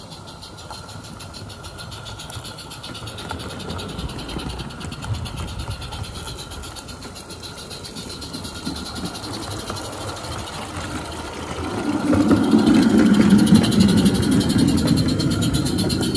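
Roundhouse Katie live-steam garden railway locomotive and its wagons running slowly on the track, a steady rolling and running sound with a faint hiss. About twelve seconds in it grows clearly louder and fuller as the train passes into a tunnel.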